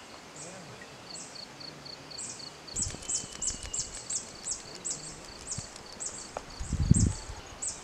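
A small animal's short high chirps repeating in a steady series. They are faint at first, then louder and faster at about three a second from about three seconds in. A brief low rumble near the end is the loudest sound.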